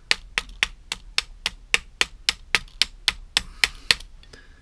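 Small hammer tapping rapidly and evenly, about four light taps a second, driving a stiff float hinge pin through a two-stroke generator's carburettor; the taps stop about four seconds in as the pin goes home.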